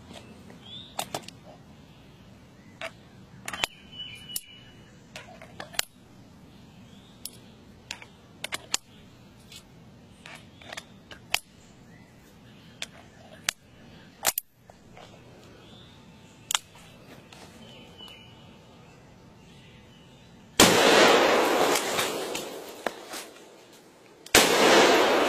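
Stainless magnum revolver being loaded: small metallic clicks as cartridges go into the cylinder and it is closed. Then two loud shots about four seconds apart, each followed by a long rumble dying away.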